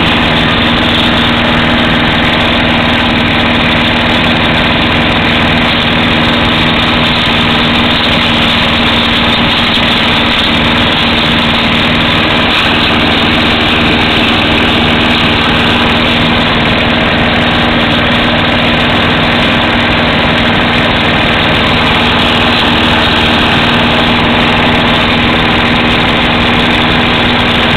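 Petrol rotary lawnmower's single-cylinder Briggs & Stratton engine running loud and steady at a constant speed, heard close up.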